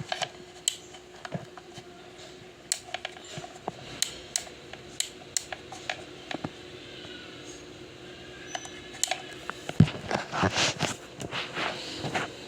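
Delta Gold 50 cm electric fan running with a steady hum, with scattered sharp clicks and a cluster of knocks and rustling near the end.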